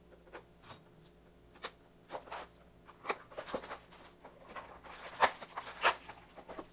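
Crinkling and clicking of a trading-card mini box and its foil booster packs being handled and opened, in irregular bursts that grow busier and louder in the second half.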